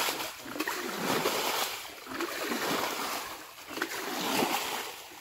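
Water being bailed out of a shallow muddy pond with a basin: a splash about once a second as each scoop is flung out.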